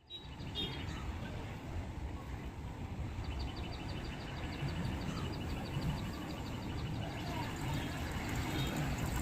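Steady low rumble of background noise, with a rapid high ticking chirp repeating about five times a second from about three to seven seconds in.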